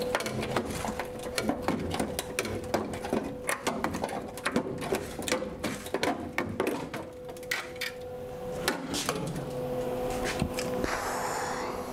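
Loose sheet-metal clanking and rattling as a plasma-cut section of the rusted suspension pan is worked free and lifted out of the car body: many sharp, irregular knocks and taps over a steady background hum, with a brief scraping hiss near the end.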